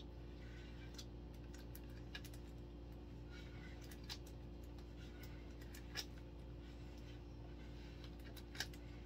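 A few small, sharp taps and clicks of a wooden stir stick against a plastic bucket as liquid silicone is scraped out of it, the loudest about six seconds in and near the end, over a faint steady hum.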